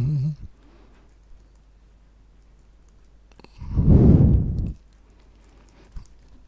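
Faint clicks and taps of a pen stylus on a graphics tablet during drawing. A short hummed "mmm" trails off at the start, and a dull, low puff of breath hits the microphone about four seconds in.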